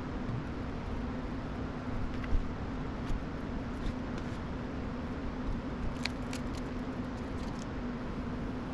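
Steady background hum holding one low tone, with scattered light clicks and taps from handling small tools and graphics-card parts; a quick cluster of clicks comes about six to eight seconds in.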